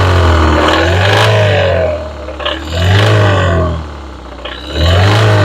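Four-cylinder engine being revved over and over, its pitch rising and falling about every two seconds, with a deep rattle under the revs that the instructor takes for rod knock.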